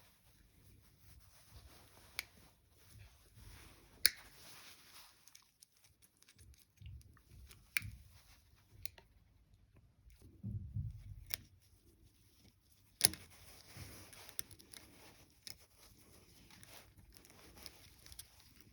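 Sparse clicks and knocks of tools and metal parts being handled, with two sharp clicks about four and thirteen seconds in and a low thump near the middle.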